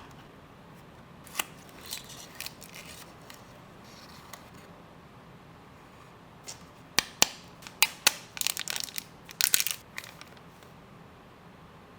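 Product packaging being handled and opened by hand: sharp clicks and snaps with short bursts of crinkling and tearing, sparse at first and busiest about seven to ten seconds in.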